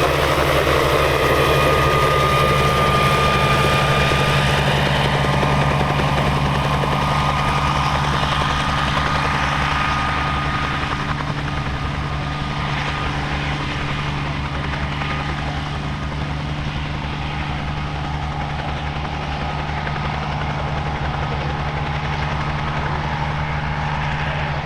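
Bell 47 helicopter running close by: its rotor beating fast and evenly over the steady drone of its piston engine, a little quieter after about ten seconds.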